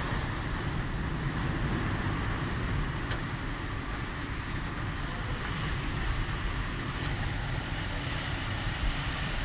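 Typhoon Hagibis wind gusting against a tall building: a continuous deep rumbling rush of wind with no rain, with a single sharp click about three seconds in.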